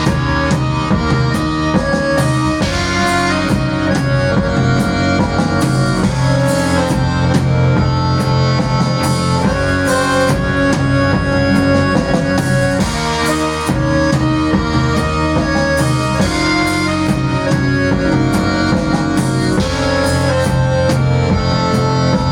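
Live folk-rock band playing an instrumental passage: an accordion carries sustained melody notes over a steady drum-kit beat, bass and guitar.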